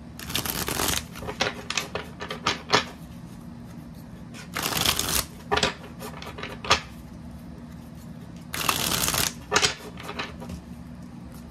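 A deck of tarot cards being shuffled by hand. Three quick rushes of flicking cards come a few seconds apart, each followed by a few taps and clicks as the deck is squared.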